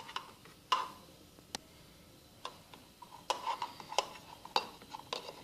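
Small containers being handled: scattered clicks and light knocks, a few at first and a quicker run of them in the second half, some with a brief hard ring.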